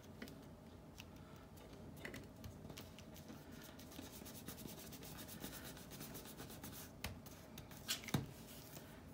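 Fingertips rubbing and pressing paper pieces flat onto a card, a soft dry rustle and scrape, with a few sharp taps near the end.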